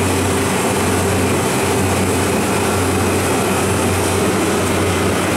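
Refrigeration condensing units running: Copeland compressors with their condenser fans, a steady low hum under an even rush of air.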